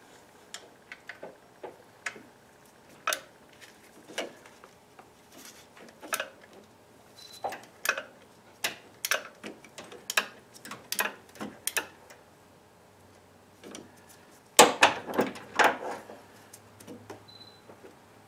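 Hand socket ratchet on an extension clicking and clinking against metal as a bolt is worked in the engine bay. The clicks come in irregular runs, with a louder cluster of knocks about fifteen seconds in.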